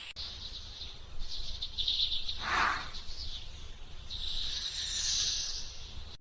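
High chirping like birds or insects, with one louder short sound about two and a half seconds in.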